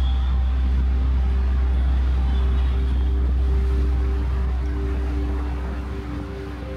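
A car being driven: a steady low rumble of engine and road noise, with a few faint steady tones over it, easing slightly near the end.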